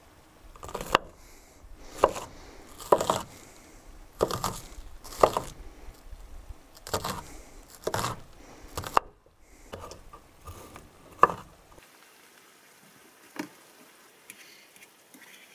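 Chef's knife chopping green onions on a wooden cutting board: about ten sharp knocks, roughly one a second, that stop about three-quarters of the way through.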